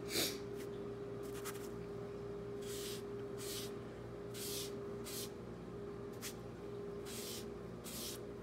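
Cotton pad rubbing powdered pastel onto a paper building print, in short scratchy strokes roughly once a second, over a steady hum.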